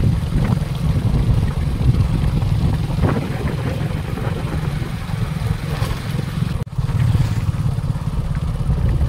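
Steady low rumble of wind buffeting the microphone, with a vehicle engine under it, while moving along a road; the sound drops out for an instant about two-thirds of the way through.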